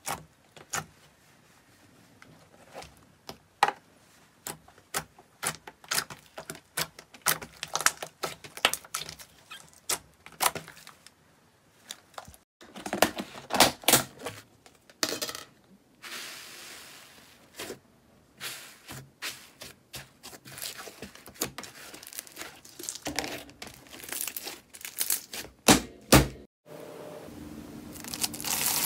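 Hands squeezing and poking slime, making a rapid, irregular run of sharp clicks and pops. Near the end this gives way to a steady crunching hiss as a hand presses into a bowl of foam beads.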